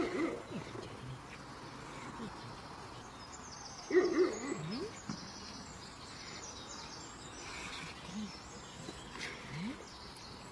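Quiet outdoor ambience with faint bird calls, broken twice by short vocal sounds that slide up and down in pitch, once at the start and once, louder, about four seconds in.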